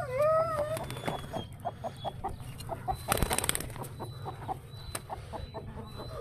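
Chicken clucking in a string of short repeated calls, with one longer gliding call at the start. A brief rustling burst sounds about three seconds in.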